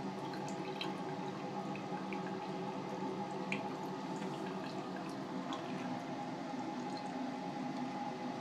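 Sink tap running in a thin, steady stream, with small drips and splashes.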